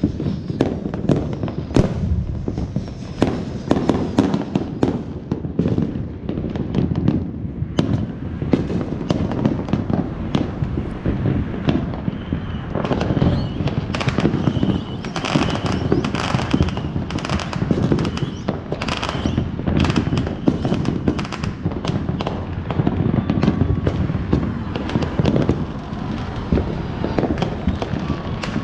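Neighbourhood fireworks going off nonstop: a dense, overlapping barrage of bangs and crackles from firecrackers and aerial shells. It grows busier and sharper about halfway through.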